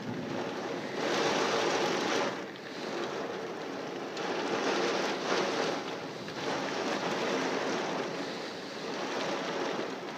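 Heavy wind-driven rain in a severe thunderstorm, a dense hiss that swells and eases every second or two as gusts of wind come through.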